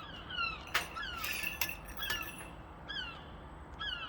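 Gulls calling: a run of short, falling notes, some overlapping, with a couple of sharp clicks about a second in.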